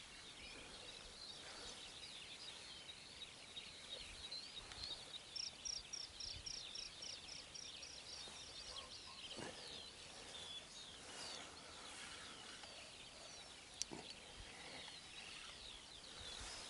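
Faint birdsong: several birds chirping, with one run of evenly spaced high notes at about four a second lasting a couple of seconds, roughly a third of the way in. A single sharp click near the end.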